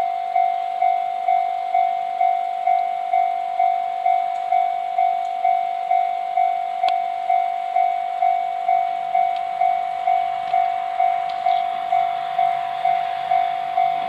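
Japanese level-crossing warning bell ringing in a steady electronic clang, about two strikes a second. From about nine seconds in, the low hum of an approaching KiHa 100 series diesel railcar joins in faintly beneath it.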